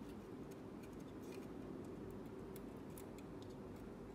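A 1.5 mm hex screwdriver working a tiny screw into a metal scale-model truck chassis: faint, scattered light clicks over a steady low hum.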